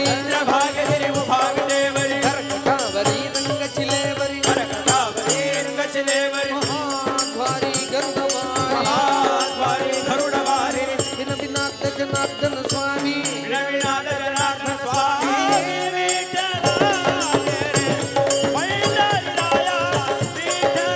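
Group devotional bhajan singing over a steady drone, with a fast, bright metallic jingling rhythm of hand percussion.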